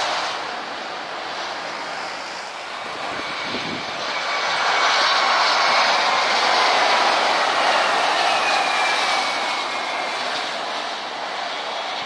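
Jet airliner engines on landing: a steady rush that eases off early on, then swells again about four seconds in as an Airbus A320-200 flares and touches down. A faint engine whine slowly falls in pitch.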